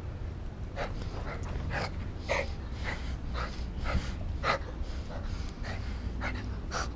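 A small dog huffing and puffing short breaths as it plays, a quick puff every second or so, over a steady low rumble.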